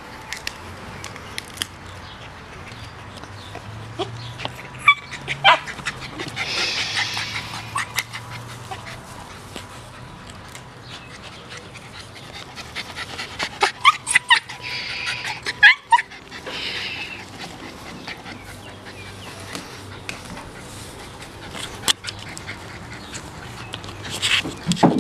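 Miniature pinscher gnawing a wooden stick: scattered sharp clicks and cracks of teeth on wood, loudest in clusters about 5, 14 and 24 seconds in.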